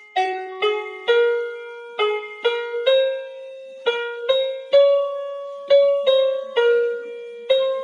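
Background music: a slow melody of single notes on a piano-like keyboard, each note struck and then fading, a little under two notes a second.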